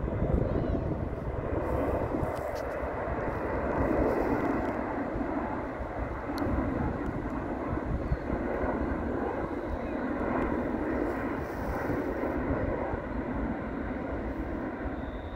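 Four-engine Airbus A380 jet airliner passing low overhead on approach with its landing gear down: a steady, noisy rumble of engines and airflow.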